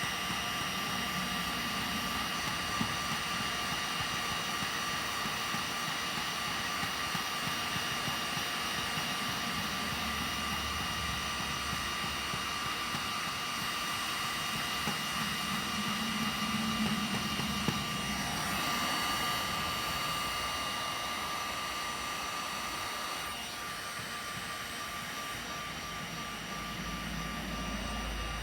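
Electric heat gun running steadily, its fan blowing with a constant whine that shifts slightly a couple of times, as it softens the boat's plastic to melt out scratches.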